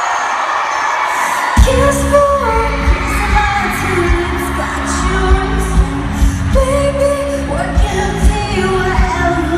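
Arena crowd noise, then about a second and a half in a live pop band starts up loud, with heavy bass, drums and a sung melody over it.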